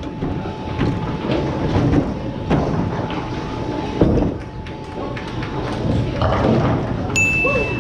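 Bowling alley: a bowling ball thuds onto the lane about four seconds in and rolls down it with a low rumble, over the steady rolling and clatter from other lanes and background voices. Near the end a steady high tone starts abruptly.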